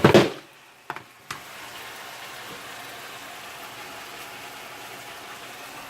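Two short clicks, then a steady even hum like a small motor running starts about a second and a half in and holds at a constant level.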